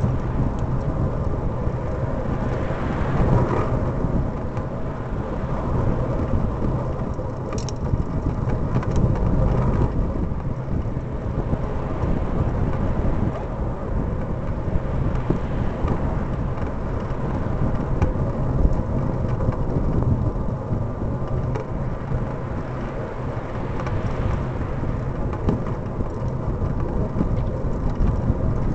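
Steady low rumble of wind and road noise picked up by a bike-mounted camera while riding, with cars passing on the adjacent road now and then. A single short click comes about a quarter of the way through.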